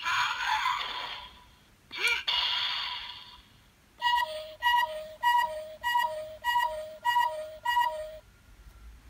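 Electronic sound effects from a Dramatic Sound DX Ultraman Belial figure's built-in speaker: a noisy whooshing effect, a click and a second whoosh about two seconds in, then from about four seconds a two-tone beep, high then low, repeated seven times at an even pace, like an Ultraman colour-timer warning.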